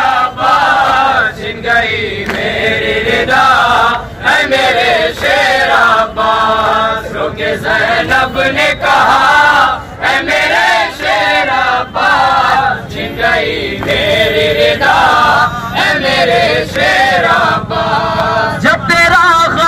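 Male voices chanting an Urdu noha, a Shia lament, into handheld microphones and through horn loudspeakers. The melody bends and is held on long notes, with short breaks between phrases.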